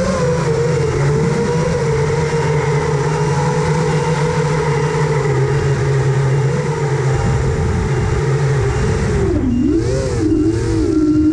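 Brushless motors of a 6-inch FPV quadcopter (3Bhobby 2306 2700KV) whining steadily, the pitch wavering up and down with the throttle. About nine seconds in it dips and swoops as the throttle is worked harder.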